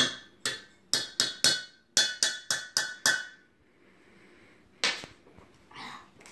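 A spoon tapping on the rim of a stainless steel mixing bowl: about ten sharp metallic taps that ring out, packed into the first three seconds, then one more about five seconds in. The spoon is being knocked against the bowl to empty it into the guacamole.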